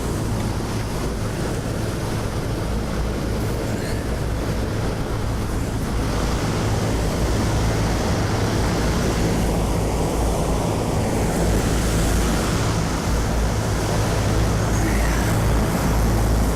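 AAON rooftop HVAC unit running: a steady low hum of the compressors under the rushing air of the ECM condenser fans, growing a little stronger about six seconds in. One condenser fan motor is not running, which the technician takes as the reason a compressor keeps tripping on high head pressure.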